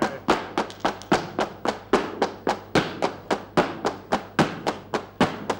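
Flamenco zapateado: heeled dance shoes striking a stage floor in a fast, even rhythm, with palmas hand clapping keeping time. The sharp strikes come about three to four strong ones a second, with softer ones between.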